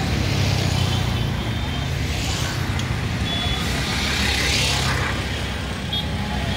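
Road traffic: a steady engine rumble with vehicles passing, one swelling past about four seconds in, and a few short faint high beeps.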